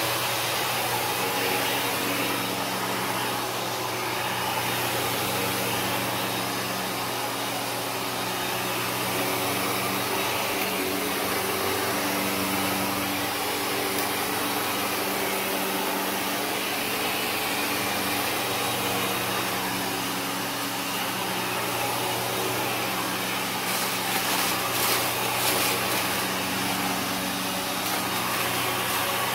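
Kenmore upright vacuum cleaner running on carpet: a steady motor hum under the hiss of suction. Near the end comes a few seconds of crunching and crackling as debris is picked up.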